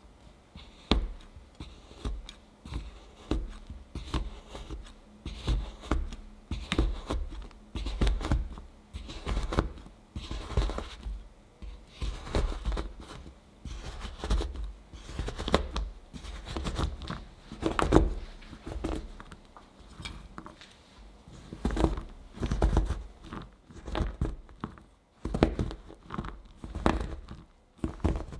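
Chef's knife chopping a bar of white chocolate on a cutting board: repeated sharp cuts, roughly one or two a second, as the chocolate is broken into small pieces.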